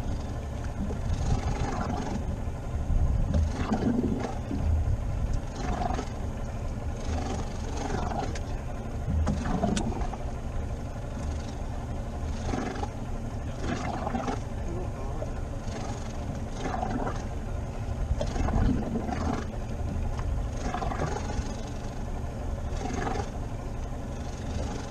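Steady low rumble of wind and water around a small boat at sea, with irregular louder surges every second or two.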